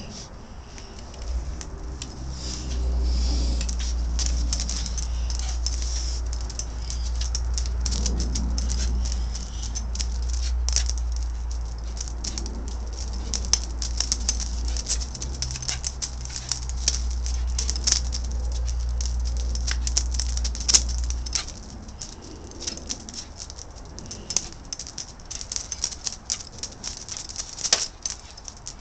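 Welsh terrier playing at a broom on concrete: a run of quick, irregular clicks, scrapes and patters from its claws and the broom's bristles on the patio. A steady low rumble sits under the first two-thirds and then stops.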